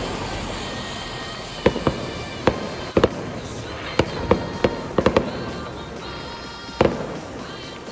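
Fireworks exploding overhead: about a dozen sharp bangs at irregular intervals, some in quick pairs, over a continuous background with music playing.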